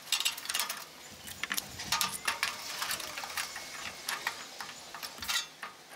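Fire bricks being set down and shifted against each other and the grill's metal firebox: a run of light knocks, clicks and scrapes, with a louder knock about five seconds in.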